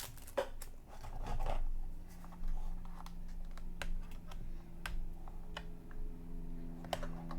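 Light plastic clicks, taps and scratching as a small plastic pry pick works at the plastic cover of a smoke-detector-style hidden camera. The clicks come irregularly, and a low steady hum comes in after about two seconds.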